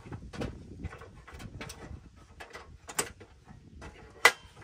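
Clicks and knocks of a small metal camp stove and its grate being handled and set in place, at irregular intervals, with a sharp knock about three seconds in and the loudest near the end.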